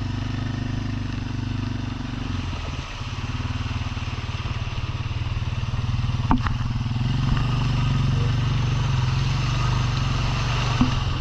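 Four-wheeler engine running as the ATV is ridden, its pitch dipping about three seconds in and picking up again later. A few sharp knocks and clatters sound over a steady hiss.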